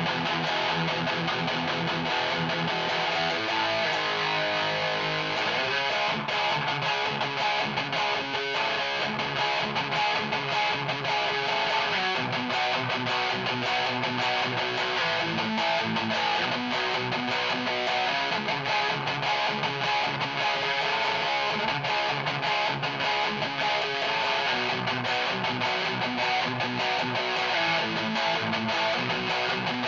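Electric guitar with active Seymour Duncan Blackout pickups, played on the bridge pickup through a Peavey 6505 Piranha amp and 1x8 cabinet, chugging and strumming metal riffs with high-gain distortion.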